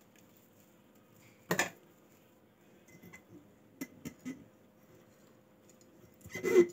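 Handling sounds of salted lemons being pressed by hand into a glass jar, with a sharp knock about a second and a half in and a few lighter taps later.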